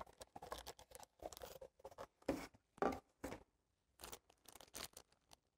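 Small cardboard box and plastic parts bags being handled and opened: a run of faint, irregular rustles, crinkles and light scrapes that stops about five seconds in.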